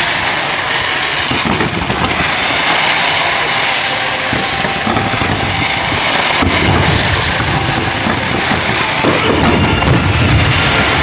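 Fireworks going off in a continuous barrage of crackling, with heavier low booms about two-thirds of the way through and again near the end.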